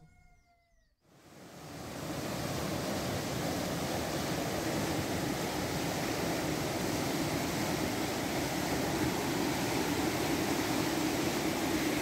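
Flood-swollen, muddy stream rushing in a steady roar of churning water below a footbridge, fading in about a second in.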